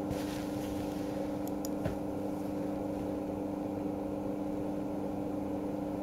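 Steady low hum of several tones, with a few faint clicks about one and a half to two seconds in.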